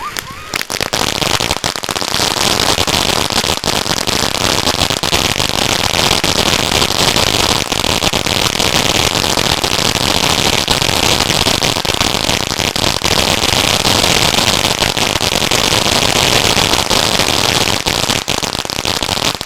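A 500-gram Magnus 'Phoenix Rising' firework fountain burning, with a loud, steady hiss of spraying sparks and many sharp crackles.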